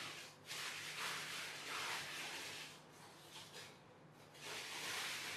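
Soft rubbing and sliding of cardboard jigsaw pieces and a hand over a fabric tablecloth, in several short swishes of a second or less.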